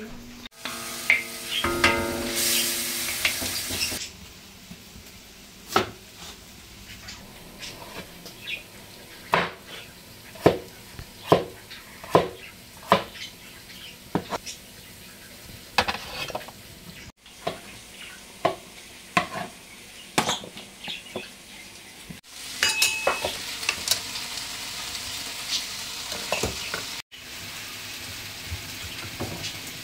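Chicken frying and sizzling in a sac pan for saciçi, stirred with a utensil that knocks and scrapes against the pan in many sharp clicks. The sizzling swells loud for a few seconds near the start and again past the middle.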